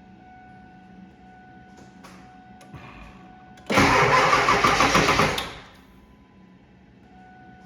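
Starter cranking a 7.3 L Power Stroke V8 diesel in short pulses for about two seconds, beginning a little under four seconds in, then stopping without the engine catching. The battery is a little weak.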